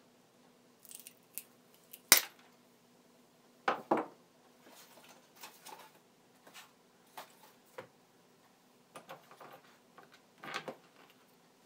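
Scattered sharp clicks and knocks of a small wooden shim being cut in half with a hand tool. The loudest comes about two seconds in, a pair near four seconds and a small cluster near the end.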